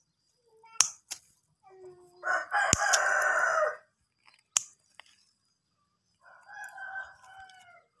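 A rooster crowing: one loud crow about two seconds in, lasting over a second, and a second, fainter call near the end. Between them come sharp single clicks of scissors snipping through fruit stems.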